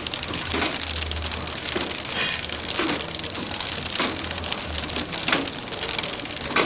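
Flow-wrap packing machine running as it wraps clutch plates in plastic film: a steady crackling clatter, with a louder sharp stroke roughly every second or so and a low motor hum that comes and goes.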